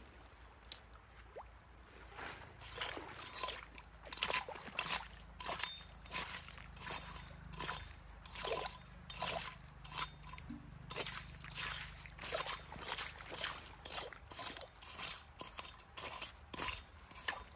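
Shallow stream water splashing and sloshing as wet gravel and mud are dug through by hand and with a small pick, in short sharp splashes about twice a second.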